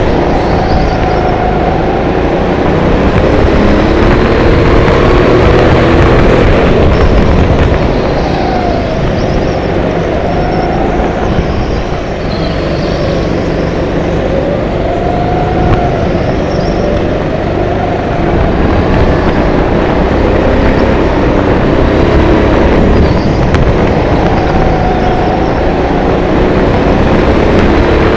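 Onboard sound of a racing go-kart driven at speed: its motor running loud and steady, pitch rising and falling several times through the corners, over heavy wind and rumble on the camera.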